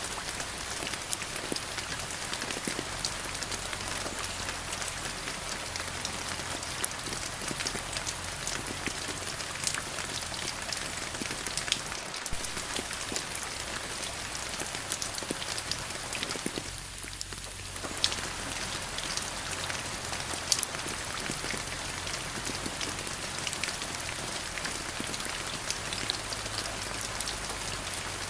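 Steady rain falling, an even hiss dotted with many sharp hits of single drops close by; the rain thins briefly about seventeen seconds in.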